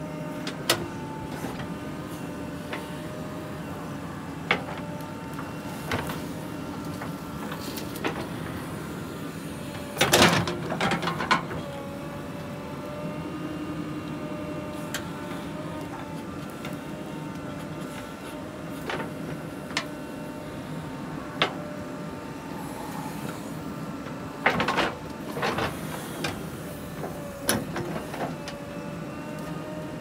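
JCB 3DX backhoe loader's diesel engine running steadily under hydraulic load while the backhoe digs earth. Sharp knocks from the bucket and boom come now and then, loudest in a cluster about ten seconds in.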